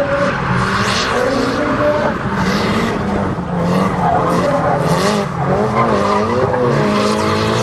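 Turbocharged race car engine revving up and down repeatedly while its tyres skid and squeal.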